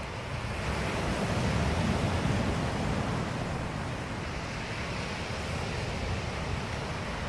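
A steady rushing noise, swelling slightly about two seconds in.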